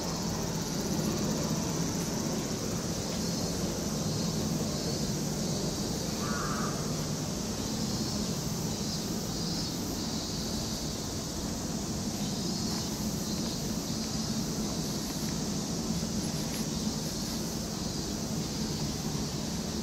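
Steady outdoor street ambience: a low hum under a high, faintly pulsing insect drone, with one short bird call about six seconds in.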